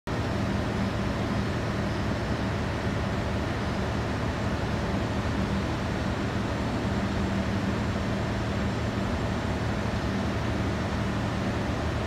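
Steady low mechanical hum of a running machine, even and unbroken, with a constant drone of street noise over it.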